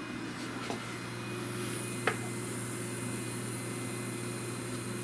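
A steady mechanical hum with a high whine coming in after a second or so, and one sharp click about two seconds in.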